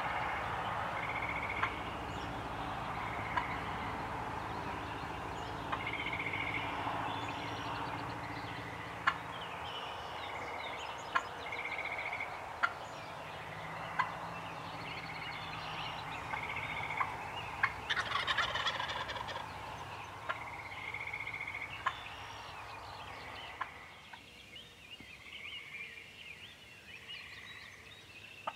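Wild turkeys calling: one gobble, a dense rattling call about 18 seconds in, among short sharp calls repeated every second or two. The sound grows quieter about 24 seconds in.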